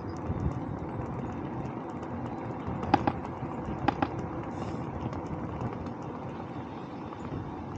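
Steady road and wind noise from a bicycle ride on a road. Two short, sharp clicks come about a second apart near the middle.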